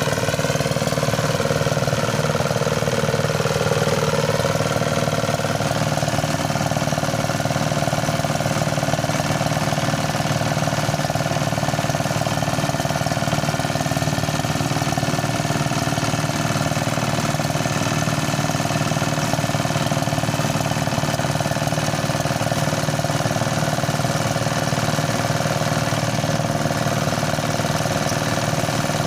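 Motorised rice thresher running steadily, its engine and threshing drum making a continuous mechanical drone. The pitch sags briefly around three to four seconds in, then holds steady.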